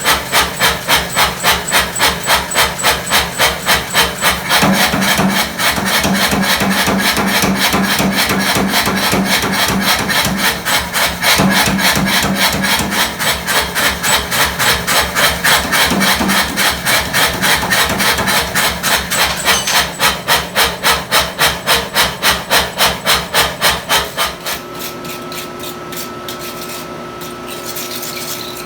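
Steady, rapid hammer blows on a hot steel-and-nickel Damascus billet, about three strikes a second and very even in rhythm, stopping about 24 s in. After that a quieter steady hum remains.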